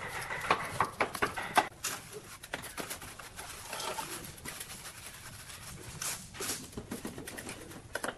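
Irregular scrapes and taps of a mason's trowel working mortar against a granite step, the sharpest taps in the first two seconds.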